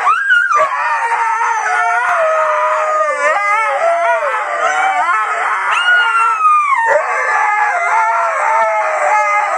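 A dog howling without a break, its pitch wavering and gliding up and down in long drawn-out notes.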